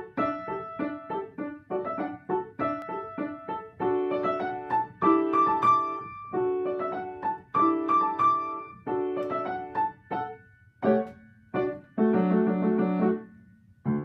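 Sohmer & Co. piano playing a lively piece in D major: a quick run of crisp staccato notes and short chords, closing on a held chord and one last short note near the end.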